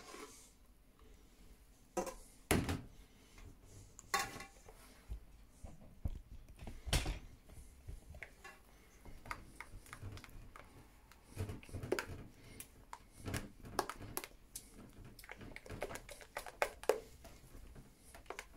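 A whisk clinking, tapping and scraping against a stainless steel mixing bowl as whipped cream is stirred into the condensed-milk mixture, in irregular short knocks, the loudest about two and a half seconds and seven seconds in.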